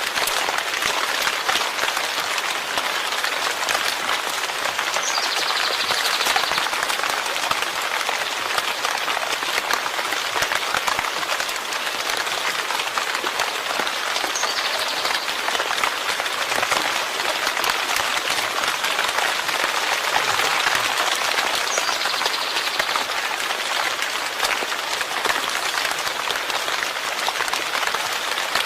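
Steady rain, a dense, even patter of drops that never lets up.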